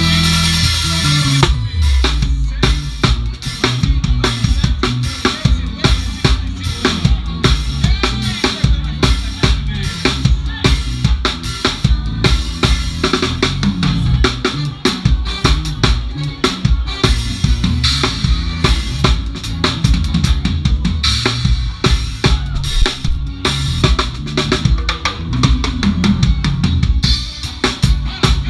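Drum kit played in a steady groove with a live band, heard close up from the drummer's position: kick drum, snare and cymbals loudest over bass and other instruments.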